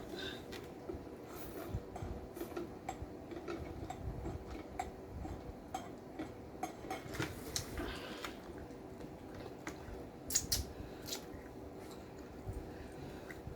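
Chewing and mouth sounds of someone eating a BLT sandwich, made up of many small irregular clicks and crunches, with a few sharper clicks about ten seconds in.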